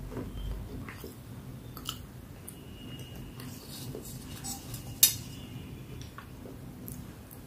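Fingers moving small chalky pieces around in a stainless-steel bowl: scattered light clinks and scrapes against the metal, with one sharp click about five seconds in.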